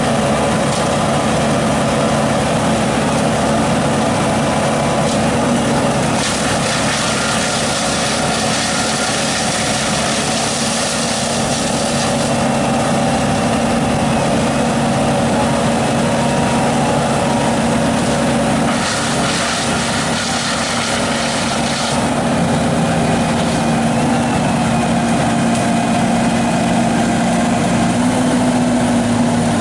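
A heavy engine running steadily at a constant speed, with two stretches of added hiss partway through.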